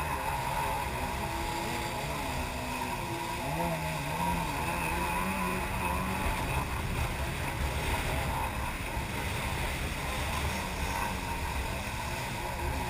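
Jet ski engine running at speed, its pitch wavering up and down, over the rush of water spray and wind on the microphone.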